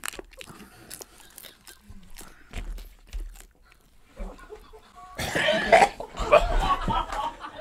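Two men chewing crunchy hard taco shells with small scattered crunches. About five seconds in this gives way to loud coughing.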